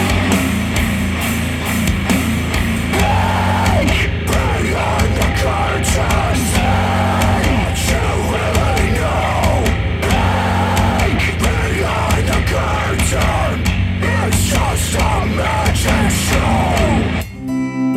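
A rock track played through ELAC Debut Reference DBR-62 bookshelf speakers driven by a Rotel A12 integrated amplifier. Near the end it cuts abruptly to a plucked acoustic guitar track.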